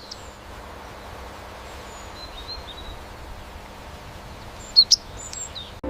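Sparrow chirping: a few faint short chirps over steady outdoor background noise, then a sharper, louder chirp near the end.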